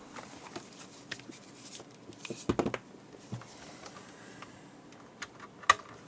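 A few faint clicks and taps, with a louder rustle about two and a half seconds in and a sharp click near the end.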